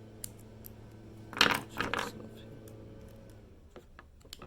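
Small metal clicks and scrapes from working a little bracket out of a 2000 Ford F-150 ignition lock cylinder, with a louder burst of scraping and rattling about a second and a half in. A steady low hum runs underneath.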